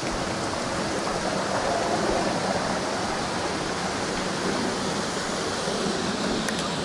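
Steady rushing of flowing water from a stream.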